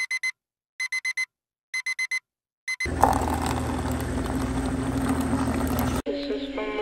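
Electronic alarm beeping in quick groups of four, about once a second. A coffee dispenser then runs with a steady hum and hiss, and music starts near the end.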